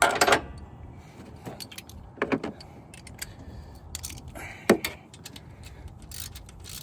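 Metal hand tools and engine parts clinking and clattering as they are handled, with scattered light clicks and one sharper knock about two-thirds of the way through.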